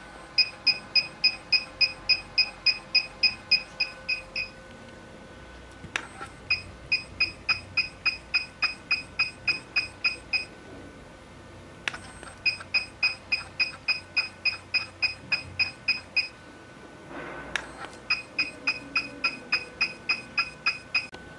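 HIFU machine beeping once for each ultrasound shot as the 4.5 mm cartridge fires a line of pulses along the cheek. There are four runs of about fifteen quick high beeps, roughly four a second, and each run starts with a click.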